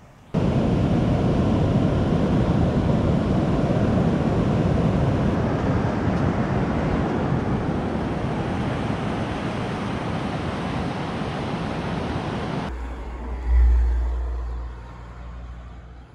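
Strong wind blowing across the microphone on an open beach, mixed with waves breaking on the shore, a steady loud rush that cuts off suddenly about twelve seconds in. A low thump follows about a second later.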